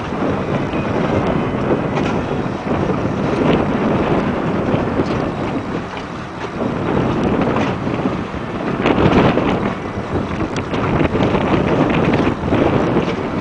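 Wind buffeting the microphone: a loud, gusting rush that swells and eases, strongest about nine seconds in.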